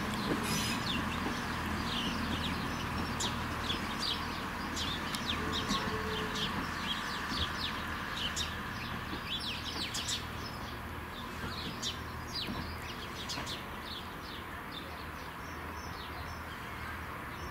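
Small birds chirping over and over, quick high downward notes, over the low, steady diesel rumble of a departing Class 170 Turbostar multiple unit, which slowly fades as it pulls away.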